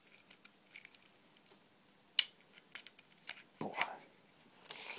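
Small plastic clicks and brief rustles from loading candy tablets into a PEZ dispenser's spring-loaded stem, with one sharp click about two seconds in.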